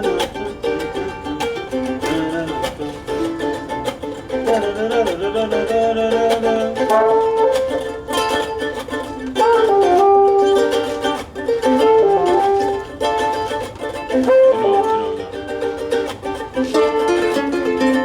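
Music on a small, high-pitched plucked string instrument, with a quick run of picked and strummed notes and little bass.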